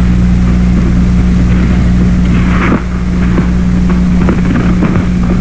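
Steady, unchanging engine drone, a constant low hum with a noisy hiss over it.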